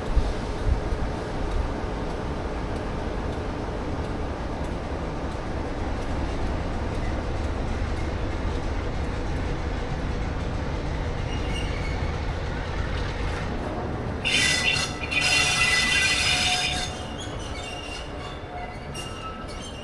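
Diesel train running on the line with a steady low rumble. About fourteen seconds in, a loud high-pitched wheel squeal lasts two to three seconds before the sound settles lower.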